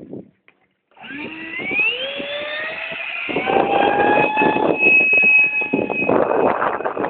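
Electric ducted-fan motor of an RC BAE Hawk jet model spooling up about a second in, its whine gliding up in pitch and then holding steady at high throttle for the takeoff run. From about three seconds in, gusty wind noise on the microphone joins it.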